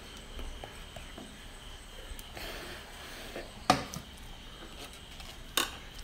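Handling of a plastic-framed mesh tea strainer over a metal pot: a brief soft rustle, then two sharp clicks about two seconds apart.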